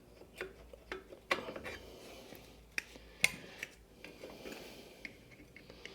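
Rear brake pads being slid and lifted out of a motorcycle's rear brake caliper: scattered small metal clicks and light scraping, with two sharper clicks about a second and a half and three seconds in.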